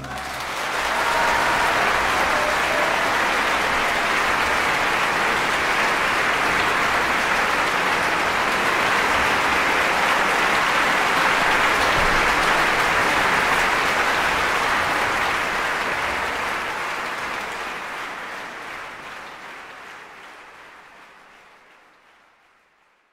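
Concert audience applauding as the orchestra's final chord dies away. The clapping is steady, then fades out over the last several seconds.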